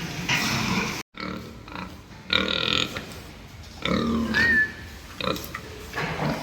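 Farm pigs giving several short squeals and grunts, with the sound cutting out for a moment about a second in.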